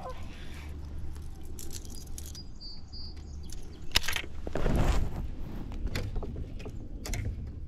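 Fishing reel clicking as a frog lure is cast and retrieved over a weed mat, with a bird chirping briefly about two and a half seconds in and a short burst of noise just before five seconds.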